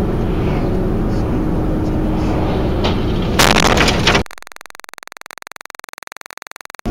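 Car dashcam recording steady road and engine noise, then about three and a half seconds in a sudden loud burst of noise lasting under a second. The sound then cuts out into a faint, evenly repeating electronic buzz, a recorder audio glitch, for about two and a half seconds before the road noise comes back near the end.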